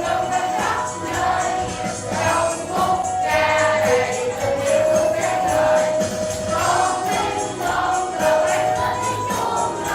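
A group of young voices singing a Vietnamese children's song together over a backing track with a steady percussion beat.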